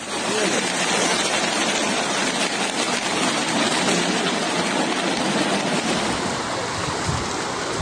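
Steady, loud rush of flash-flood water and heavy rain.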